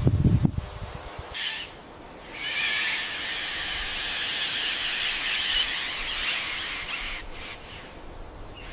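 Bird calls: a short high call about a second and a half in, then a long run of high calls lasting about five seconds, after a few low thumps at the very start.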